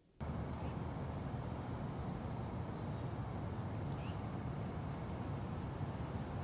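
Outdoor ambience: a steady low rumble with a few faint, short bird chirps over it.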